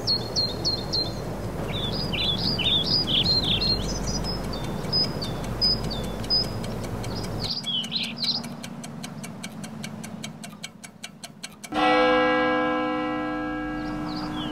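Small birds chirping over a low background rumble. About halfway through this gives way to steady, rapid clock-like ticking. Near the end a sudden ringing chord of several sustained tones sounds and slowly fades.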